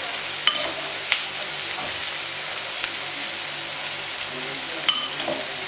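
Meatballs in sauce sizzling steadily in a frying pan, with a few light, ringing clinks.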